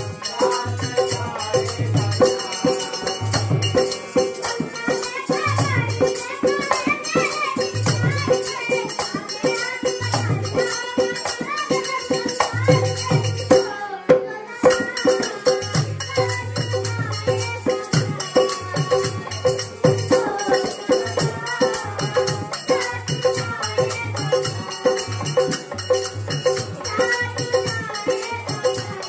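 Live Hindi folk song: a young singer's voice over a harmonium's held drone, a dholak drum keeping a steady beat, and tambourines and hand cymbals jingling. The whole ensemble stops for a moment about halfway, then carries on.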